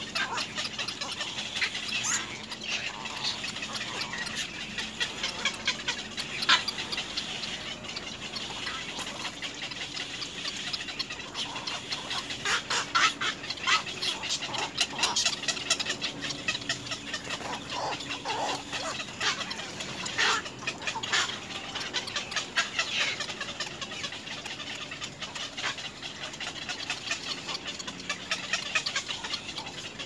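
Black-crowned night heron chicks in the nest making rapid clicking, chattering calls, in repeated bursts that are busiest about halfway through.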